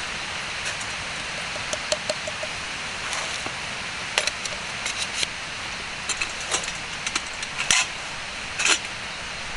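Wood campfire crackling: irregular sharp pops and snaps over a steady hiss, with a few louder pops near the end.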